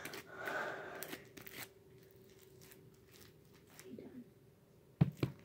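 Sticky slime being worked and squished with hand sanitizer, giving soft crackling and clicking for about a second and a half. After that it goes nearly quiet, with a few sharp clicks near the end.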